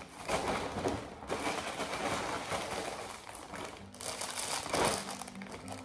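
Plastic mailer bag and clear plastic wrapping crinkling and rustling as they are handled, in uneven bursts with a louder rustle about a third of a second in and another just before the end.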